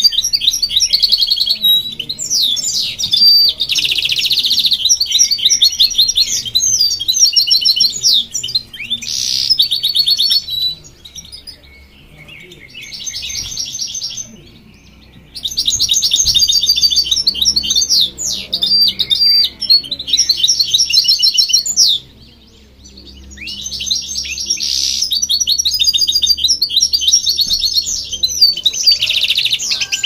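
Goldfinch-type finch song: long runs of rapid twittering and trilled notes, broken by quieter pauses about eleven and twenty-two seconds in.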